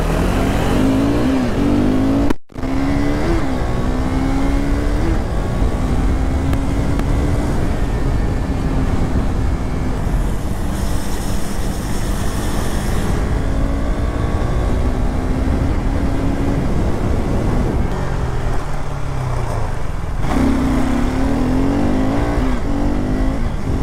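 KTM RC 390's single-cylinder engine accelerating hard through the gears: the revs climb and drop back with each of several quick upshifts, then hold steadier at cruising speed. The sound cuts out for an instant about two and a half seconds in.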